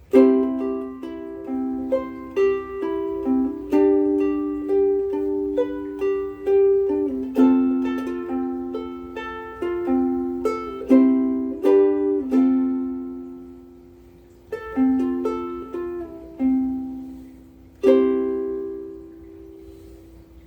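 Martin S1K koa soprano ukulele with Martin M600 strings, played as a run of plucked chords and single notes, each ringing out. It starts abruptly after a pause, and a last chord near the end rings and fades away.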